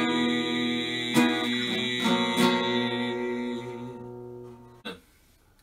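Acoustic guitar strumming the closing chords of a hymn, the last chord ringing out and fading away, followed by a short knock near the end.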